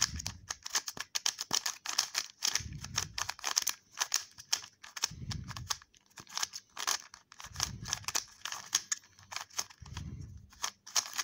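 Plastic 3x3 puzzle cube being turned by hand: quick, irregular clicking and clacking of its layers. The cube is dry and unlubricated and turns stiffly. A dull low sound comes about every two and a half seconds.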